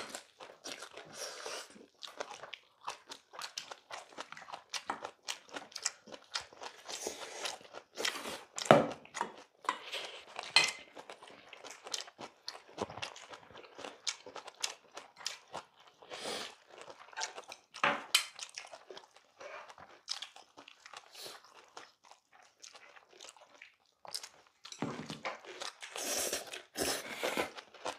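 People chewing mouthfuls of bibimbap, a steady run of wet crunching and smacking, with wooden spoons and chopsticks now and then clicking and scraping against stainless-steel bowls. A few sharper clicks stand out about 9 and 18 seconds in.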